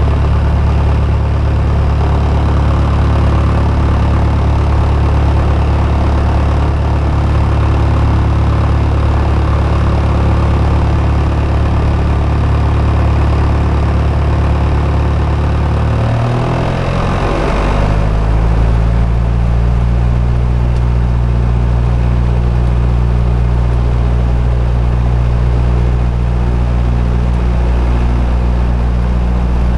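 Single-engine light aircraft's piston engine and propeller running at idle, heard from inside the cockpit. About halfway through the engine note shifts briefly, then settles back to a steady idle.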